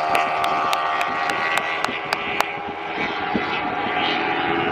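Road-racing motorcycles running at high revs on the circuit, a steady high-pitched engine sound with slight rises and falls in pitch. Sharp clicks come about five a second through the first half.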